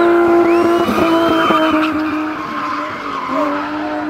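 BMW M20 inline-six engine held at high revs while a spinning car's tyres screech, the revs dipping briefly about a second and a half in and again after about three seconds.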